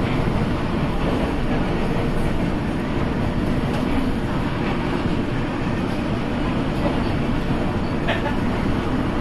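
Düsseldorf Airport SkyTrain suspended monorail car running along its overhead guideway, heard from inside the car: a steady running noise, with a brief faint tick about eight seconds in.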